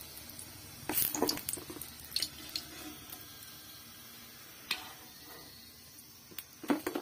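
A metal slotted spoon knocks and scrapes against a wok a few times as fried potato bondas are lifted out, over a faint, steady sizzle of hot frying oil.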